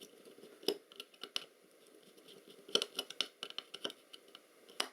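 Scattered small clicks and taps of a screwdriver and small metal parts being handled while screws are undone on an electronic unit, irregular and a few seconds apart.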